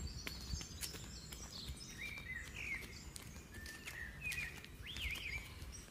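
Birds chirping: a string of short calls that rise and fall in pitch, clustered in the middle seconds, over faint outdoor background noise with a few light ticks.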